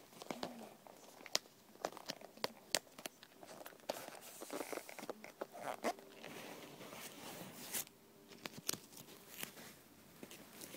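Duct tape being pulled off the roll with short ripping rasps, torn and pressed onto a box, among many sharp taps and crinkles of handling.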